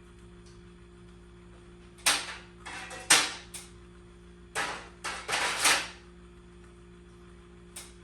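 A string of sharp knocks and clanks, about eight in irregular spacing bunched in the middle, then one light knock near the end, over a steady low electrical hum: tools and hardware being worked during a garage door installation.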